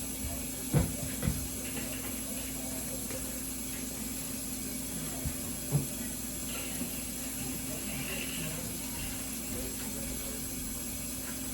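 Steady hiss and low hum, with a few soft knocks: two about a second in and two more a little past the middle.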